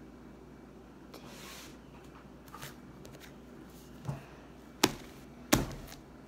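Hands working a large sheet of glittery slime on a wooden tabletop: a soft thump about four seconds in, then two sharp knocks less than a second apart.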